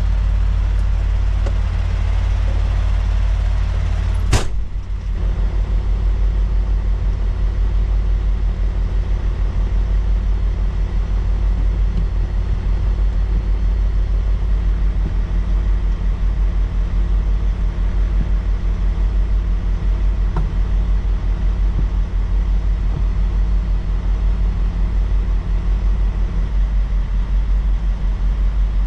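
Kenworth road train's diesel engine idling steadily, heard from inside the cab. About four seconds in comes one sharp bang, the cab door slamming shut.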